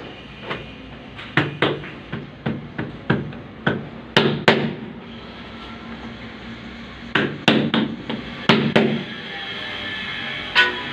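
Sharp knocks of a large ceramic wall tile being tapped to bed it into the tile adhesive, coming in quick irregular runs through the first half and again about seven to nine seconds in.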